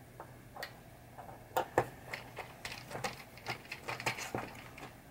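Screwdriver turning a pop bumper's mounting screw into its metal bracket under a pinball playfield while the assembly is pressed down. It gives a run of irregular small clicks and ticks, busiest from about a second and a half in until near the end.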